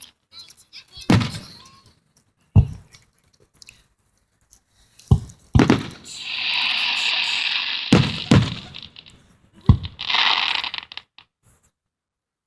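Aerial fireworks bursting: about seven sharp booms at uneven intervals. Two longer hissing, crackling stretches come in between, one a little after the middle and one about ten seconds in.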